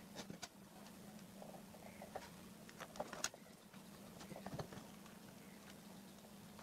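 Faint handling noise of fingers on a homemade board of coin vibration motors and wires: a scatter of light clicks and taps, the sharpest about three seconds in, over a faint low hum.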